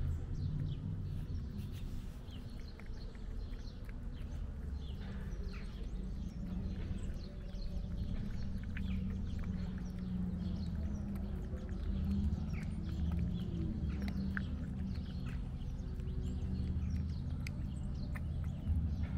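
A cat eating wet food close up, chewing and lapping with many small, quick wet clicks, over a steady low rumble.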